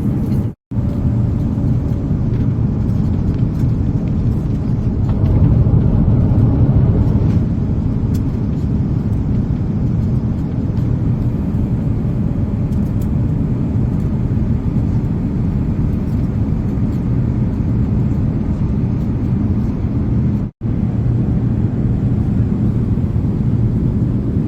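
Steady low rumble of an Airbus A350-900's cabin from inside, the engines and airflow heard through the fuselage, swelling slightly for a few seconds and cutting out abruptly twice.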